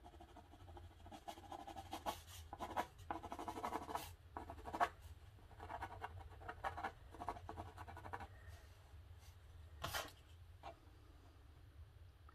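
Coloured pencil scratching on rough Arches 300 lb watercolour paper in clusters of short strokes, over a faint low hum. A single sharp tap comes about ten seconds in.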